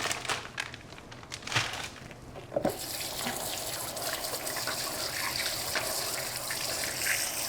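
A few clinks and knocks of kitchenware, then a kitchen tap turned on, running steadily into the sink.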